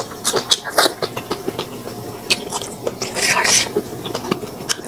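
Close-miked eating: chewing and mouth noises of rice vermicelli and fish, with many short wet clicks and smacks.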